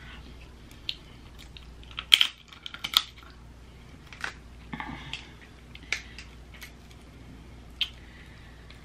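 Cooked head-on shrimp being peeled by hand: the shell crackles and clicks in irregular sharp snaps, with a quick cluster about two seconds in.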